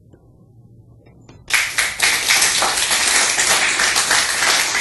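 Audience applauding, starting suddenly about a second and a half in after a short quiet and continuing as a dense, steady clatter of many hands.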